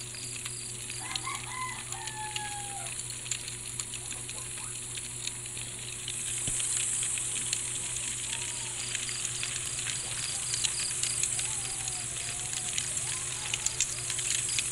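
Night ambience: crickets chirping in rapid pulses over a steady high insect hiss, with crackling of a campfire throughout and the hiss growing louder about six seconds in. Several short wavering animal calls sound over it, the first about a second in and others later on.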